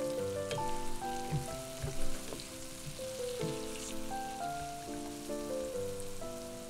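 Background music made of a gentle melody of sustained notes, over a faint steady sizzle of food frying in a pan.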